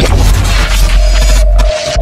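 Loud intro sound effect for an animated logo reveal: a dense burst of noise over a deep rumble, with a steady tone entering about a second and a half in.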